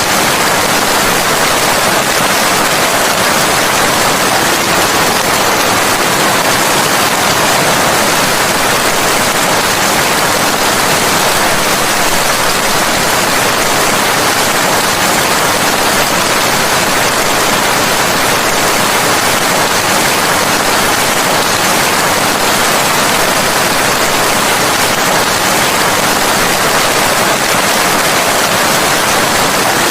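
Steady rain, an even loud hiss that never lets up.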